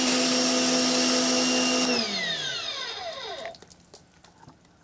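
PowerSmart PS22 electric pressure washer running under load with its fan-tip spray hissing. About two seconds in the trigger is let go and the motor winds down with a falling whine, the sound dying away over a second or so.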